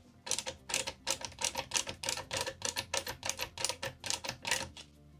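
Precision screwdriver driving a tiny screw into a plastic model-truck part: a quick, even run of sharp clicks, about four or five a second, that stops shortly before the end.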